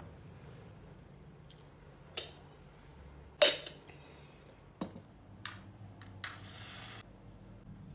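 A few separate clicks and knocks of wooden cutlery against paper food bowls, with one louder clink of a drinking glass set down about halfway, followed near the end by a short scraping hiss.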